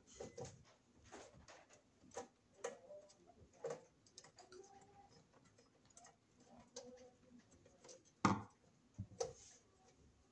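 Irregular clicks and taps of a tool working at the screws of a metal breaker-panel cover to take it off, with a sharper knock about eight seconds in.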